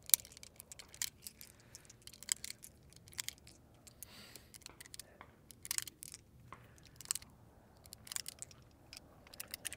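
9mm cartridges being pressed one at a time into a pistol magazine by hand, each seating with a sharp click, at irregular intervals of about a second.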